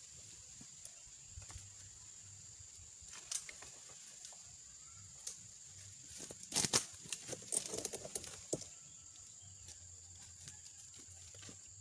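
Dry oil-palm fronds crackling and rustling as an egrek, a sickle on a long pole, hooks and cuts in the palm's crown. A few crackles come first, then a dense burst of sharp crackling about halfway through that lasts about two seconds.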